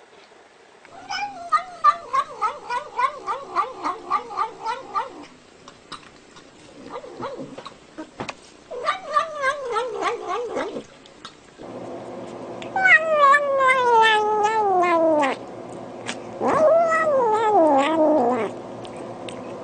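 Cat yowling in four long, wavering calls, the third sliding steadily down in pitch, with a steady low hum behind the later calls.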